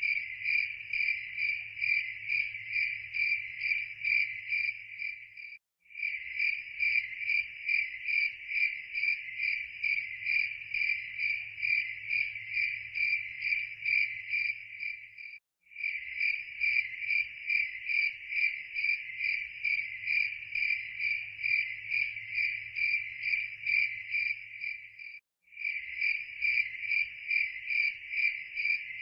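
Crickets chirping in a steady, even pulse of high chirps, which break off for an instant about every ten seconds.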